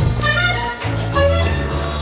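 Music with a bass line stepping between held notes every half second or so, a melody above it and light percussive hits.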